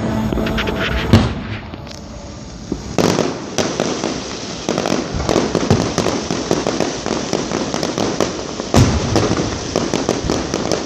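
Fireworks going off: a loud bang about a second in, then from about three seconds a dense run of bangs and crackling, with another loud bang near the end.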